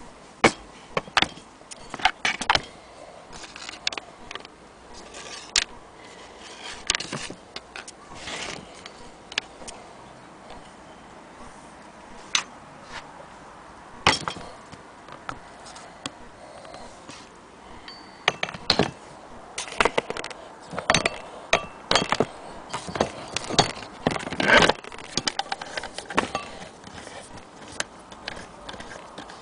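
Irregular metallic clinks, clicks and knocks as an antique Willcox & Gibbs hand-crank sewing machine is handled and turned over. They come in scattered clusters, thickest in the last third.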